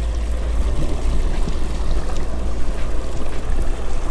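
Wind buffeting the microphone over rushing water, a steady fluttering rumble.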